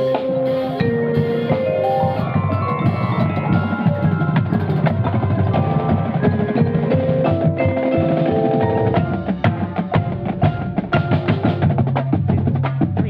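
Front-ensemble percussion music with a vibraphone up close: mallet-struck metal bars ringing in long held notes that step from pitch to pitch, over a steady low layer and quick percussion strokes. The strokes grow busier and more clattering after about nine and a half seconds.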